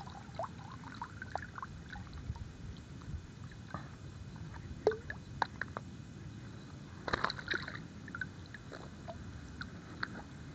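Faint water sloshing and small splashes at a muddy pond edge, with scattered light clicks and a denser cluster of them about seven seconds in, over a low rumble.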